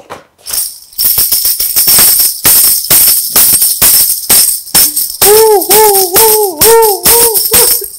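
Hand-held tambourine with metal jingles shaken and struck in a quick, steady rhythm, starting about a second in. Over the second half, a woman's voice sings a short rising-and-falling note again and again along with it.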